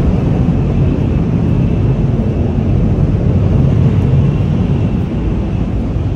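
Steady low rumble and rushing noise of a Shinkansen bullet train running at speed, heard from inside the train, with a faint steady high whine over it.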